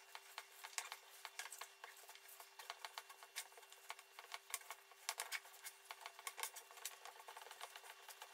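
Hands kneading and pressing raw mince mixed with chopped onion and carrot on a plate: faint, irregular sticky squelches and small clicks, many to the second.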